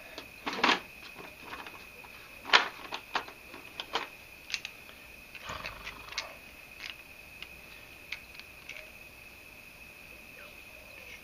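Scattered clicks and clinks of small metal hand tools being handled while a helicoil insert tool and thread tap are set up, the sharpest knock about two and a half seconds in. A steady high-pitched trill runs underneath.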